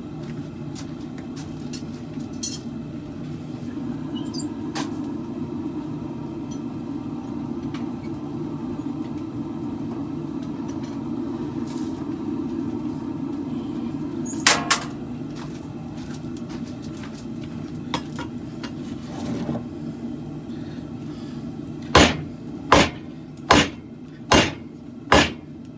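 Hammer blows on the khopesh blade being forged: two sharp strikes about halfway through, then five loud strikes in an even rhythm, about one every three quarters of a second, near the end. Under them runs a steady low rumble.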